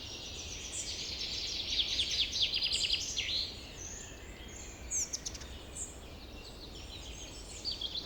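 Forest birds calling together: many short chirps and whistles overlap, with a fast trill about two seconds in. A steady low rumble runs underneath.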